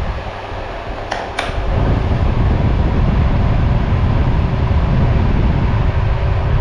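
Candes Inova 2000 W electric fan heater running, its fan blowing a steady rush of air over a faint motor hum. Two sharp clicks come about a second in, after which the airflow sounds louder.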